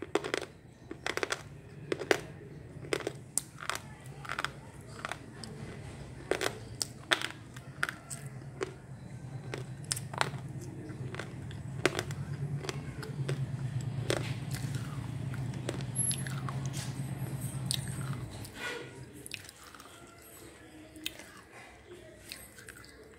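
Slate pencil being bitten and chewed: many sharp, hard crunches, closely spaced at first and fewer later. A steady low hum runs underneath and stops about three quarters of the way through.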